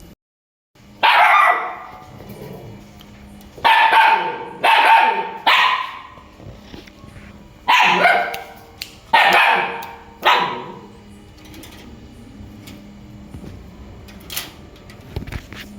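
A dog barking loud: about seven sharp barks in bunches of one to three, stopping about ten seconds in.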